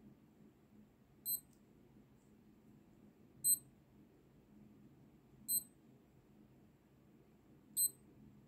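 Naviforce NF 9197L digital-analog quartz watch beeping four times, one short high-pitched electronic beep about every two seconds. Each beep confirms a press of its pushbuttons as the watch is stepped through its modes, from stopwatch to alarm.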